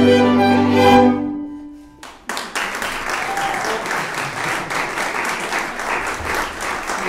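Hungarian folk string band of violins, violas and double bass ends its tune on a held final chord that dies away about two seconds in. Then an audience applauds steadily.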